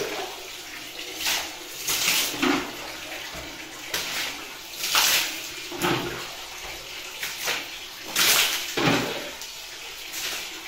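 Water splashing in short, irregular bursts, roughly one a second, as a kitchen counter and sink are washed down with water and a sponge.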